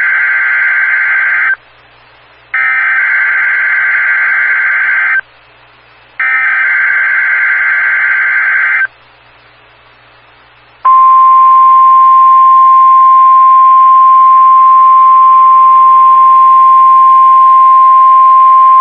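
NOAA Weather Radio Emergency Alert System activation signalling a test tornado warning: three bursts of the digital SAME header data, each about two and a half seconds long with a pause of about a second between them. After a gap of about two seconds, the steady 1050 Hz warning alarm tone starts about eleven seconds in and holds.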